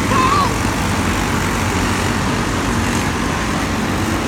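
Racing go-kart engines running on the track: a steady, loud mix of small engines.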